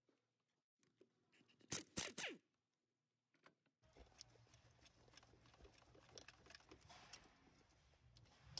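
Near silence, broken by three short, sharp clicks close together about two seconds in, then a faint hiss with a few tiny ticks.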